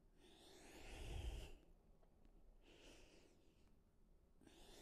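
Faint breathing of a woman exercising, in slow breaths during prone chest lifts: one breath about a second in, another around three seconds, and a third starting near the end.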